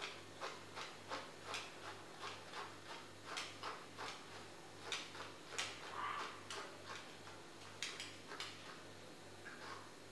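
Short scratching strokes of a grooming brush drawn through a poodle's curly coat, repeated in a quick, fairly even rhythm of about two to three a second.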